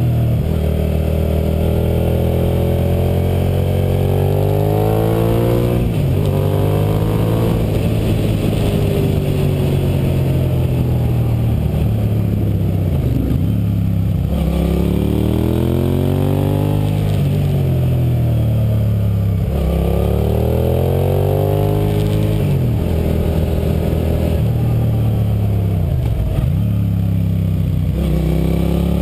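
2006 Suzuki SV650's V-twin engine under hard riding through a run of tight bends. Its pitch climbs and drops back several times as the throttle is rolled on and off.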